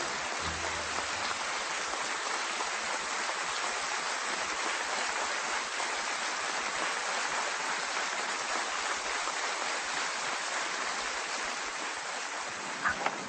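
Audience applauding steadily, an even rain-like patter of many hands clapping. Two short sharp knocks stand out near the end.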